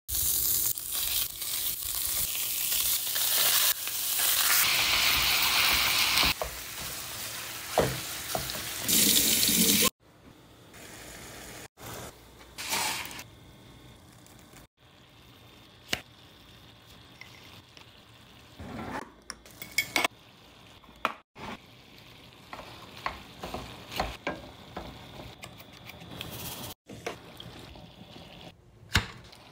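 Ground meat sizzling and frying in a nonstick skillet, loud for about the first ten seconds. After that it drops much quieter, leaving a spatula stirring and scraping the browned meat, with a few sharp clicks.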